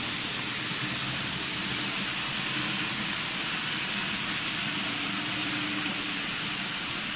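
N gauge model trains running around the layout: a steady hiss of wheels on the rails with a faint low motor hum underneath.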